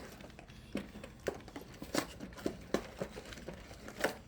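Short, irregular clicks and knocks, two or three a second, from someone handling and eating food in a hurry.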